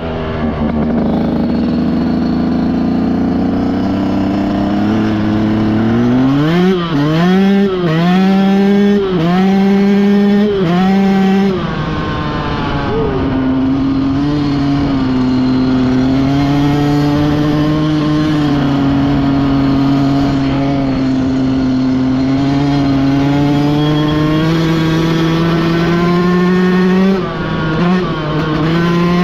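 Yamaha dirt bike engine running at low revs, then accelerating hard from about six seconds in, the revs climbing and dropping back with each of several quick upshifts. It then holds a steady cruising speed, with another shift near the end.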